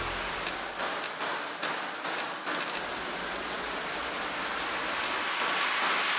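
Rain-like hiss with scattered crackles, part of an electronic runway soundtrack, with no beat or melody; it swells and brightens near the end as a build-up.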